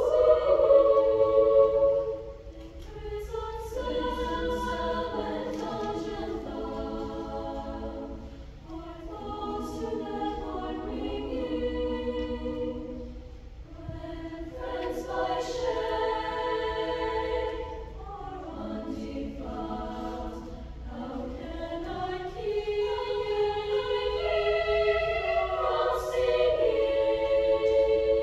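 A large choir of young women singing in harmony: long held notes in phrases with short breaks between them. It is loudest in the opening two seconds, softer after that, and swells again near the end.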